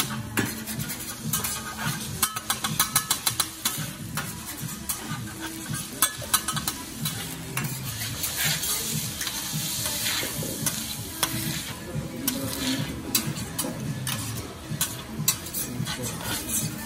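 Metal spatula scraping and tapping on a steel teppanyaki griddle as rice is spread and chopped for garlic rice, with the rice sizzling on the hot plate. There are many quick sharp clicks throughout, and the sizzle swells about halfway through.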